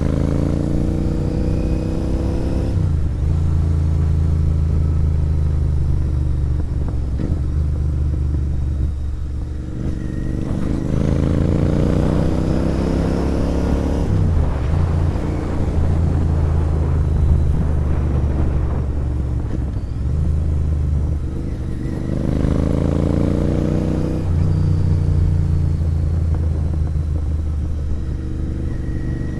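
Royal Enfield Interceptor 650's 270-degree parallel-twin engine through a sport exhaust, ridden under acceleration. Three times the engine note climbs in pitch and then drops away, between stretches of steady low rumble.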